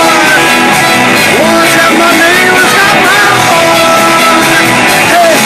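Live rock band playing loud through PA speakers: a man singing over electric guitar, electric bass, drums and trumpet.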